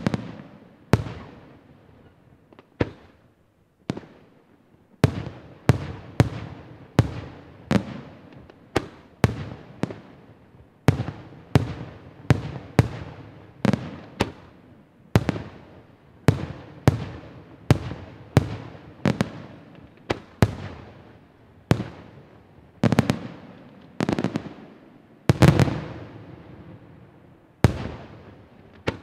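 Aerial firework shells bursting in a steady series of sharp bangs, each trailing off in an echo. A few spaced bangs come first, then one to two a second, with the loudest cluster about three-quarters of the way through.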